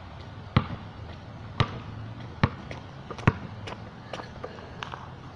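A basketball dribbled on asphalt: four sharp bounces a little under a second apart, then a few fainter taps as it is caught and handled.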